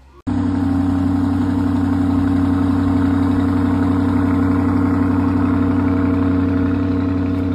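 Lamborghini Urus's twin-turbo V8 idling steadily at an even low pitch, with no revving.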